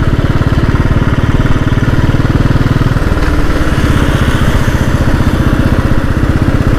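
Royal Enfield Bullet single-cylinder engine running steadily with a rapid, even thump; its note shifts about three seconds in.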